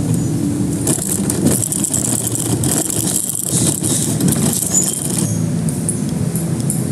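A steady low mechanical hum under a continuous rush of outdoor noise.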